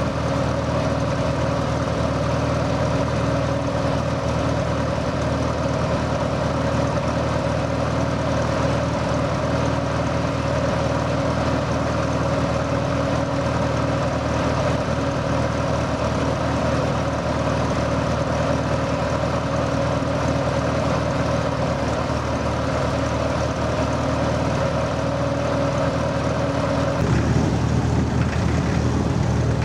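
Vintage tractor engine idling with an even, unchanging note. Near the end it cuts abruptly to a different, slightly louder engine sound.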